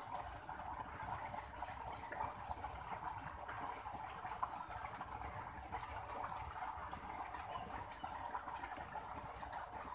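Irrigation water running along an earthen field channel and spilling into the beds: a steady babbling trickle.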